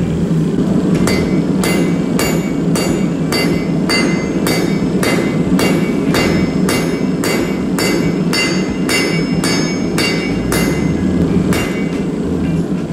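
Hand hammer striking red-hot spring steel on an anvil face in steady blows, about two to three a second, each with a short metallic ring: forging the knife's tang. A steady low rumble runs underneath.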